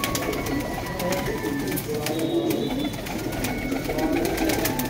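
A flock of domestic pigeons cooing together, many low warbling coos overlapping without a break.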